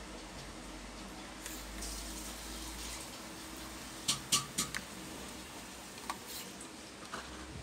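Three quick sharp clicks from small wire connectors being handled on a desktop motherboard, with a couple of fainter ticks after, over a steady background hum.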